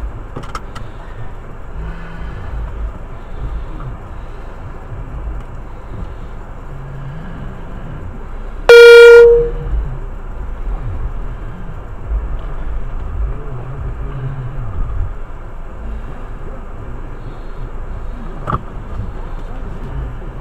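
Low, steady rumble of the Jeep Compass Trailhawk running, heard from inside the cabin. About nine seconds in comes a single loud one-pitch toot lasting under a second.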